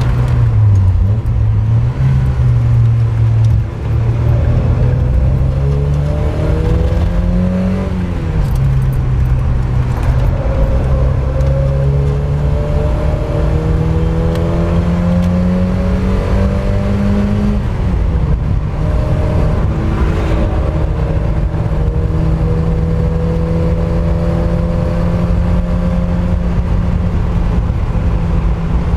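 Mk1 Mazda MX-5's four-cylinder engine driven hard on track: revs climb, drop sharply at a gear change about eight seconds in, climb again, fall back about eighteen seconds in and then hold fairly steady, over steady road and wind noise.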